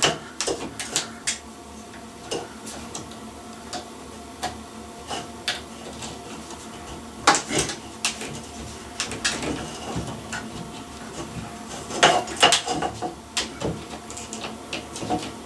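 Plastic LED ceiling light fitting being handled as its wires are poked through the grommet and the base is pressed up against the ceiling: scattered light clicks, knocks and rubbing. There is a sharper knock about seven seconds in and a cluster of clicks near the end.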